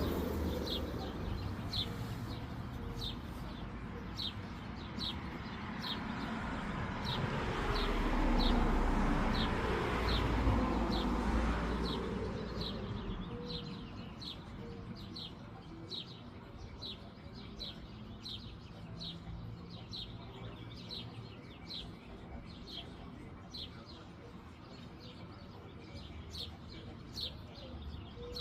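A bird chirping over and over, short high chirps about twice a second. A broad rushing noise swells and fades over the first twelve seconds or so.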